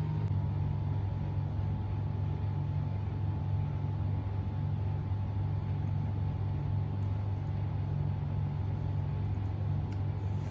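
A steady low hum, unchanging throughout, with a faint higher whine above it.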